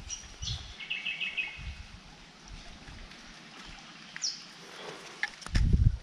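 A bird calling: a few falling notes, then a quick run of about five repeated chirps, and a single falling chirp a few seconds later. Low thumps come near the end and are the loudest sound.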